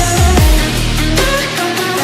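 Electronic dance music in a dubstep style, with deep bass hits that fall in pitch; the bass drops out about three quarters of the way through.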